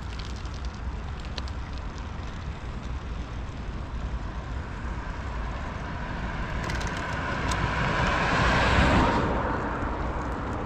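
A road vehicle passing by: its hiss builds over a few seconds, peaks about nine seconds in, then drops away, over a steady low outdoor rumble.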